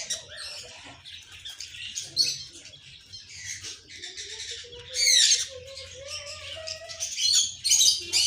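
Parakeet squawking and chirping in a quick run of short, harsh calls, loudest about five seconds in and again near the end.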